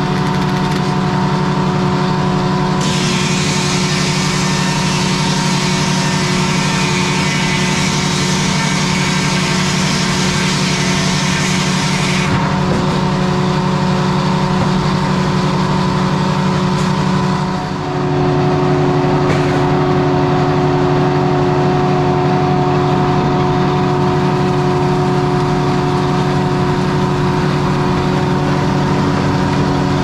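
1953 Detroit Diesel 3-71 two-stroke three-cylinder diesel running steadily, driving the sawmill. A few seconds in, a loud high hiss from the saw cutting rises over the engine for about nine seconds and stops sharply; a little past halfway the engine note dips for a moment and settles at a different pitch.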